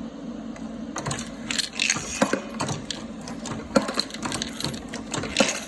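Motorised case feeder's rotating disc running with a steady hum, and 9mm brass cases clinking and rattling as they are fed down the metal tube. The clinking starts about a second in.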